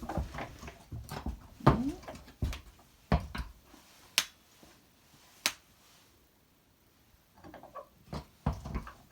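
A few sharp, separate clicks and knocks spread over several seconds, with a short low sound about a second and a half in and a quiet stretch after the clicks stop.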